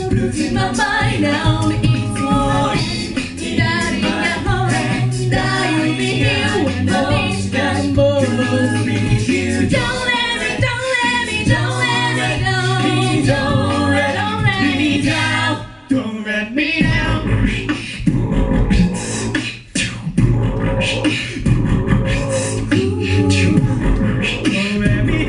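A cappella vocal group singing live in harmony, with a beatboxer supplying the drum beat. The music drops out briefly twice in the second half.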